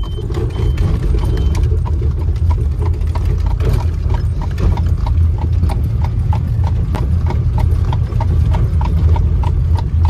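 Horse's hooves clip-clopping on asphalt in a steady, even rhythm of about three beats a second as it pulls an Amish buggy. Under the hoofbeats is the steady rumble of the moving buggy's wheels on the road.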